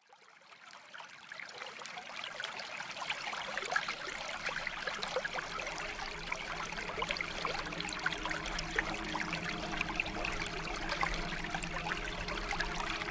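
Underwater sound effects: a dense crackling, bubbling water noise fades in over the first few seconds, and a steady low hum of submarine machinery joins about five seconds in.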